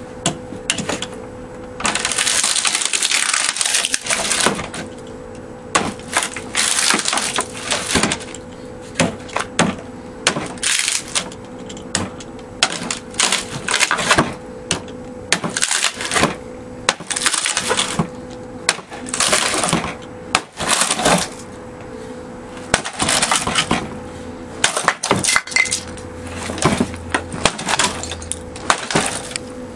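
A steel pick head, from a German military shovel with its scoop removed, repeatedly hacks and pries at a wooden door frame. The blows come irregularly, each followed by cracking and splintering wood.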